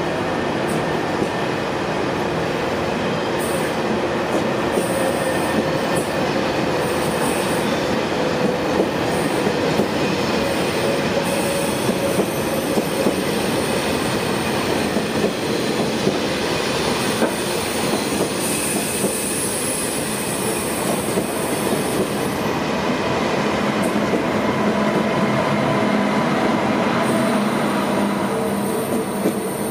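A Deutsche Bahn ICE high-speed train's coaches rolling close past along the platform as the train pulls out: a steady rumble of wheels on rails, with a thin whine over it.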